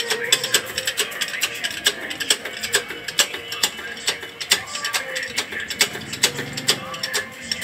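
Rapid, irregular metallic clicking, like a ratchet, from a hydraulic shop press working to press out a Bajaj RE pivot pin.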